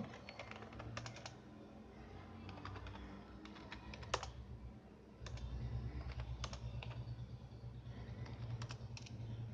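Computer keyboard being typed on, scattered keystrokes. A low steady hum comes in about five seconds in.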